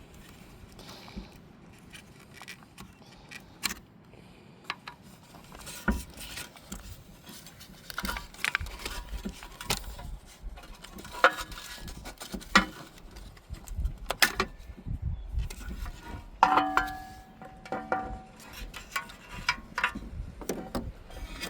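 Scattered metallic clicks and clinks of hand tools, bolts and fittings being handled while a Jeep Wrangler's tailgate-mounted spare tire carrier is taken off, with a brief squeak about three-quarters of the way in and low wind rumble on the microphone.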